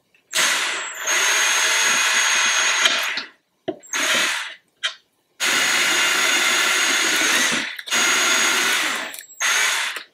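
Cordless drill with a tiny bit boring pilot holes into wood to keep it from splitting. It runs for about three seconds, gives a few short bursts, then runs twice more for about two and a half and one and a half seconds, with a brief burst near the end.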